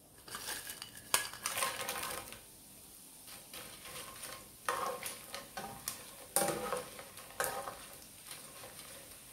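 Small dried anchovies frying in hot oil in a ridged grill pan, with a light sizzle, while a spatula stirs them and knocks and scrapes against the pan several times.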